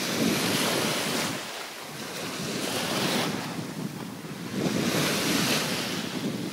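Shallow surf washing up over sand and bare feet and draining back, swelling in three surges of hiss, with wind rumbling on the microphone.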